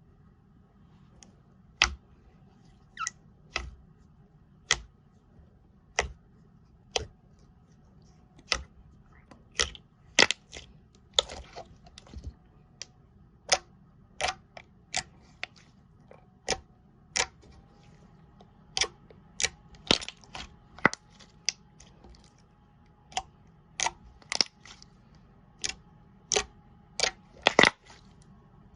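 Slime being pressed and played with by hand, giving sharp, separate clicking pops a little over once a second, irregularly spaced, over a steady low hum.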